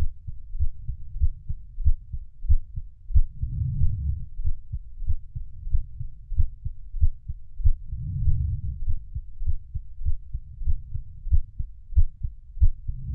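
Heartbeat: a steady rhythm of low, muffled thuds, with a low swell of sound rising every four to five seconds.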